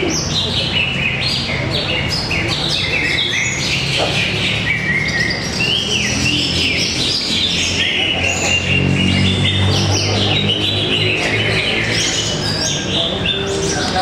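Several caged greater green leafbirds (cucak ijo) singing over one another in a dense, continuous stream of quick whistled phrases that jump up and down in pitch.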